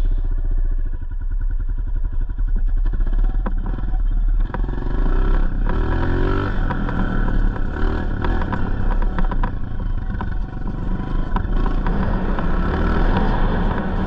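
Honda 125 dirt bike engine, just started, idling with an even beat, then revving up and down from about four seconds in as the bike rides off over rough grass, with knocks and rattles from the bumps.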